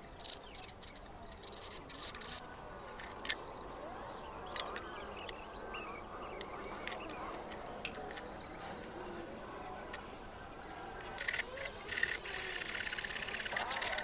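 A few knocks and clicks of wood and tools being handled, then, about eleven seconds in, a hand saw starts cutting through a board with fast rasping strokes that keep going.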